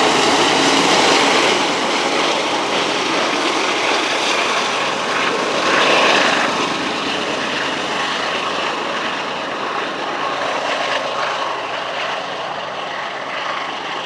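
Union Pacific grain train's freight cars rolling past, a steady rushing clatter of steel wheels on rail that slowly fades as the train draws away.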